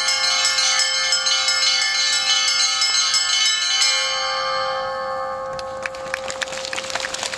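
Orthodox church bells ringing: quick repeated strikes on the small bells over a steady hum from a larger bell. The strikes stop about four seconds in and the bells ring out and fade. Near the end, a dense crackle of sharp clicks sets in.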